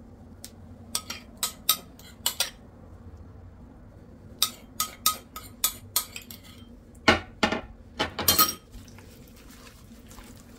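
A spoon clinking against a bowl again and again, in irregular clusters of sharp ringing taps while the marinade is mixed, the loudest taps coming about seven to eight seconds in.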